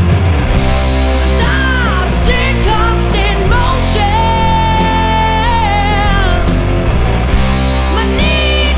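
Rock song playing: full band with heavy bass and a lead melody that slides between notes and holds one long note about four seconds in.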